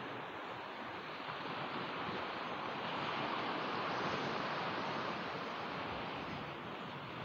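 Sea surf washing onto a sandy beach: a steady rushing that swells about four seconds in, then eases off.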